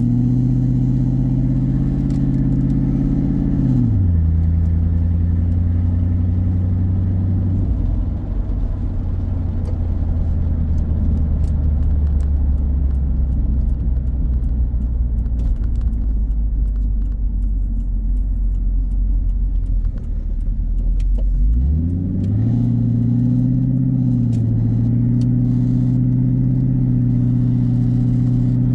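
Ford 4.6-litre V8 of a 2001 Mustang GT running on an exhaust with the cat-back section deleted (no mufflers or resonators), heard from inside the cabin. A steady cruising drone drops in pitch about four seconds in as the car slows and settles to a low idle rumble. A little past twenty seconds the pitch rises as the car pulls away again, then holds steady.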